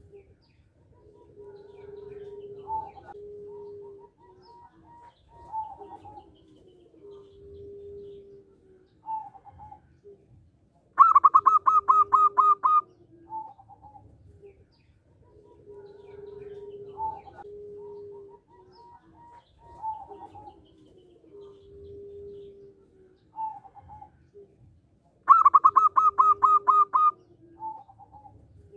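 Zebra dove (perkutut) singing: twice, about fourteen seconds apart, a loud burst of rapid, high staccato notes, and softer, lower cooing notes in between.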